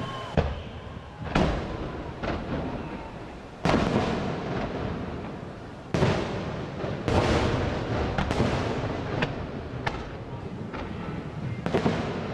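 Aerial fireworks shells bursting: a string of about ten sharp booms at uneven intervals, each trailing off in a rolling echo, the loudest a little before and after the middle.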